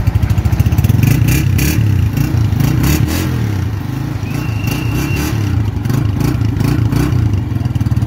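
Honda CG 125's single-cylinder four-stroke engine running through its stock exhaust, a steady low beat of firing pulses.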